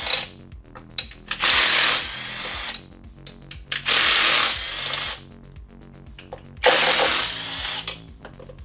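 A cordless power tool with an 8mm socket spins three times, each run under a second long and loudest at its start, about two and a half seconds apart. Each run backs out one bolt as the engine top end is stripped.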